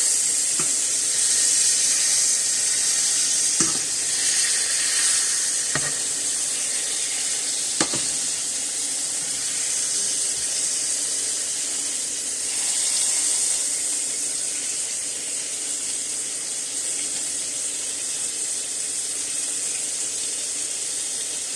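Steak frying in butter in a pan: a steady, high sizzle, with a few light clicks in the first eight seconds or so.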